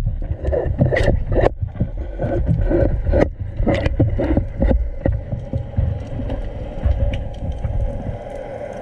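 Water sloshing and gurgling close to the microphone, with a steady low rumble and irregular knocks and clicks; a steady hum comes in about halfway through.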